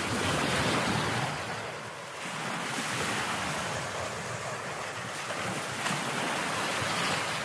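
Sea water washing and lapping in the shallows, in slow swells, with wind buffeting the microphone.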